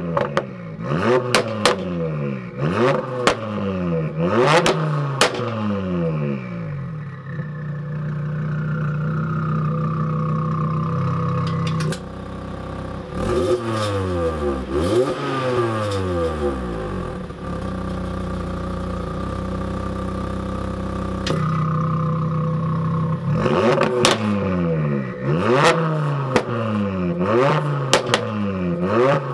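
Tuned Audi RS3 sedan's turbocharged 2.5-litre five-cylinder, standing still and revved in quick blips of about a second each, with sharp cracks at the tops of the revs. Between the runs of blips it holds a steady note for a few seconds.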